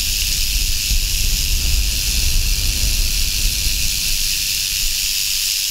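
Mojave rattlesnake's rattle buzzing steadily, a continuous high hiss-like whir, over a low rumble of wind on the microphone.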